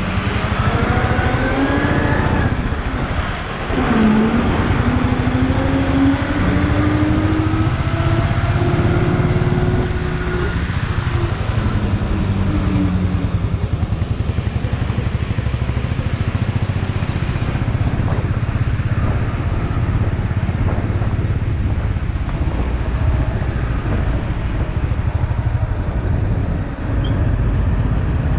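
Royal Enfield Bullet single-cylinder motorcycle engine running steadily while riding up a rough mountain road past lorries. In the first dozen seconds, engine notes rise and fall in pitch.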